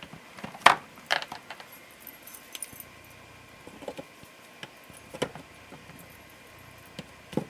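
Small craft bottles clicking and knocking against each other and the wooden organizer rack as they are set in place and straightened. There is a cluster of sharp clicks in the first second and a half, then a few scattered clicks.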